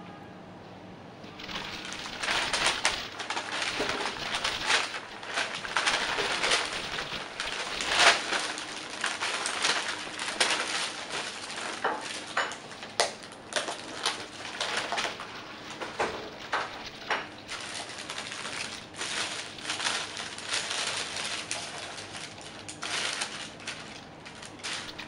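Paper bags and food wrappers crinkling and crackling as takeaway food is unpacked, with sharp clicks of plastic containers and lids. It starts about a second and a half in and keeps on as a busy, uneven crackle.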